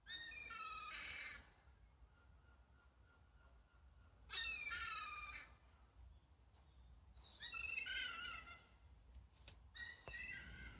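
A songbird singing faintly in four short, high phrases of rapid notes a few seconds apart.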